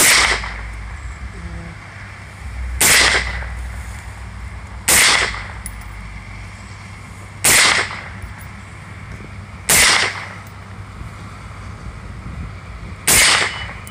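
AR-15-style rifle firing six single shots, one every two to three seconds, at steel plates.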